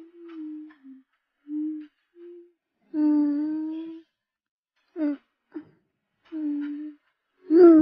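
A child's voice humming to itself in short, broken notes with pauses between, one note held for about a second, the last ones sliding down in pitch.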